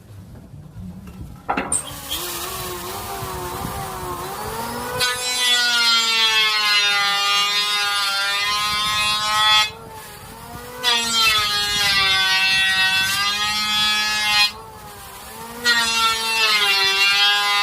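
Electric wood router (mesin bobok) starting about a second and a half in, then running and cutting out letters in a wooden board, its high whine wavering in pitch as the bit loads in the wood. Twice the sound drops sharply for about a second before the loud whine returns.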